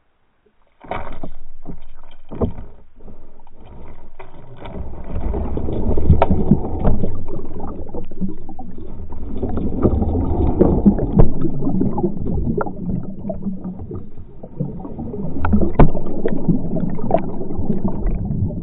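Muffled water noise picked up by a camera under water: low rumbling and sloshing with scattered clicks and knocks, starting after about a second of silence.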